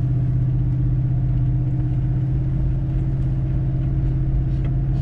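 Lexus GX460's 4.6-litre V8 running under steady load as the SUV pulls through deep, soft sand in four-wheel drive, heard from inside the cabin as a constant low drone with road rumble.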